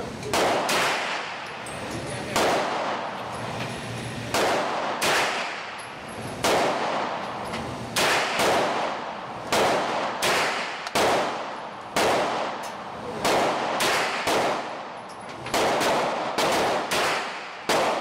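A CZ Scorpion EVO 3 S1 9mm pistol fired semi-automatically in an indoor range: a string of about twenty single shots at an uneven pace, one or two a second with some quick pairs, each followed by an echo off the range walls.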